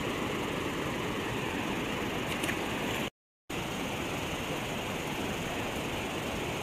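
Steady rush of a fast-flowing river current over rapids. It drops out to silence for a moment about three seconds in.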